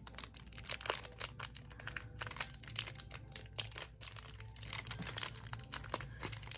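Foil Pokémon booster pack crinkling and crackling in the hands as it is worked open against its glued seal, in a steady run of small irregular crackles.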